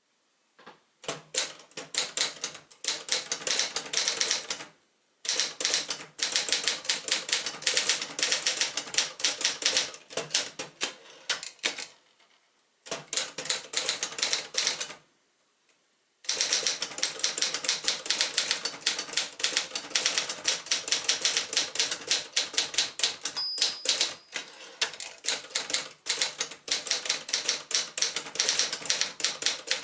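1973 Adler J2 portable typewriter being typed on fast: rapid runs of sharp keystrokes that pause briefly three times. A short ringing tone sounds about two-thirds of the way through.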